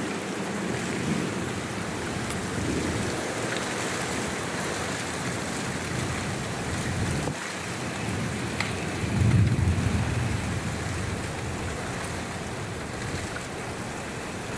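Thunderstorm: a steady hiss of rain and wind, with a low rumble of distant thunder swelling about nine seconds in and fading a second or so later.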